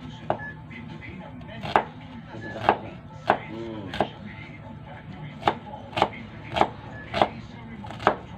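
Kitchen knife chopping a red onion on a wooden cutting board: about ten sharp knocks of the blade on the board at an uneven pace.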